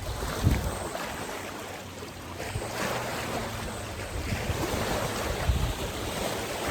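Wind gusting over the microphone at a lakeshore, a steady rushing noise with low rumbling buffets, the strongest about half a second in and again near the end.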